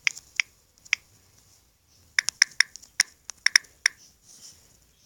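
Computer keyboard keys being typed on in sharp, irregular clicks: three single taps, then a quick run of about ten about two seconds in.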